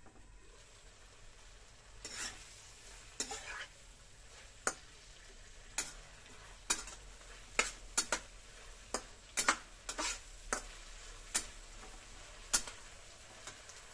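Spatula stirring vegetables in a wok: a string of irregular scrapes and knocks of the spatula against the wok, starting about two seconds in, over a faint sizzle.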